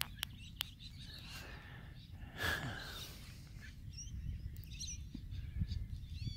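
Open-air ambience: small birds chirping over a steady low rumble, with one brief louder sound about two and a half seconds in.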